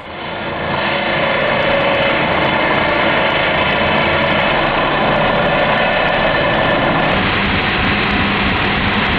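Angle grinder cutting into a steel motorcycle frame: a loud, steady whine of several pitches over a dense rasp of metal being ground.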